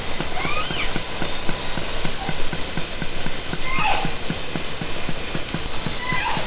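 Killer whales of the J and K pods heard underwater through a hydrophone: a few short calls with stacked harmonics, a rising-then-falling one just after the start, a falling one about four seconds in and another near the end, over a continuous rapid train of echolocation clicks.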